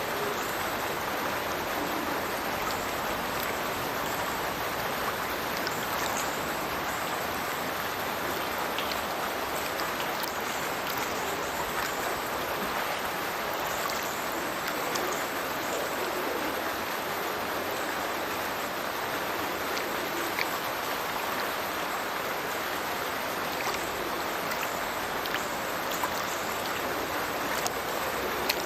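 A burn pouring from a culvert outfall into a river below, with a steady rush and splash of falling water and the odd sharper splash.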